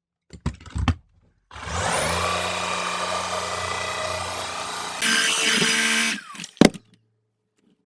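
Shark EVOPOWER SYSTEM iQ+ cordless stick vacuum: a few handling clicks, then the motor spins up with a rising whine and runs steadily while picking up hair. About five seconds in the sound turns louder and harsher, then the motor winds down with a falling whine, followed by one sharp click.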